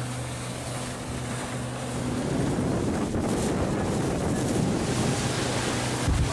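Motorboat engine running at speed, a steady low hum under the rush of water against the hull and wind on the microphone. The water noise swells about two seconds in, and a brief low thump comes near the end.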